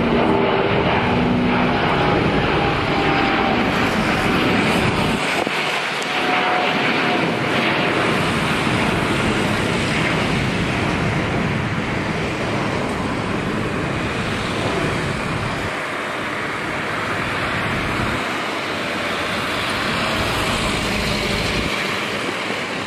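Jet noise from a climbing Airbus A350-900's Rolls-Royce Trent XWB turbofans at take-off thrust: a steady, dense rush that slowly fades as the jet climbs away.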